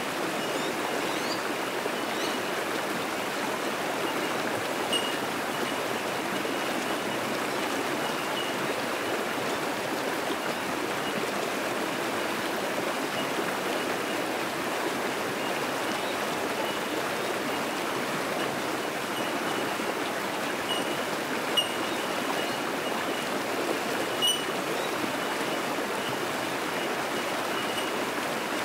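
Fast-flowing creek rushing over rocks in a steady wash of water noise, with short, high, bell-like pings from bell miners (bellbirds) scattered through it.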